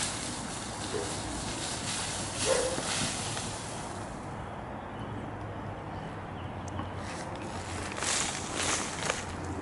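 Siberian husky digging a hole in loose dry dirt with its front paws: a rapid run of scratching and scraping with soil flung about, which stops about four seconds in, followed by a few more scrapes near the end.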